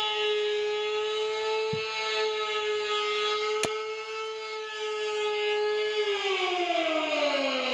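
Mobile outdoor warning siren sounding a steady tone, then winding down with falling pitch about six seconds in. A single sharp click about halfway through.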